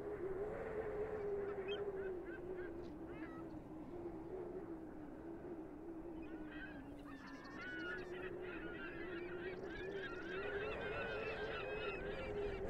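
A flock of geese calling: a few scattered calls in the first seconds, then a dense, overlapping chatter from about halfway through. Under it runs a steady low hum that wavers slightly in pitch.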